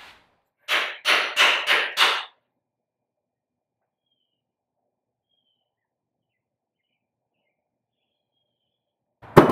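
A ratchet wrench worked in five quick strokes while the new golf-cart batteries' terminal hardware is fitted, followed by several seconds of silence and a single sharp click near the end.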